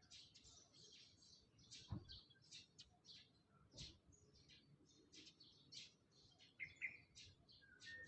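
Birds chirping faintly: many short, high chirps in quick succession, with two brief soft knocks about two and four seconds in.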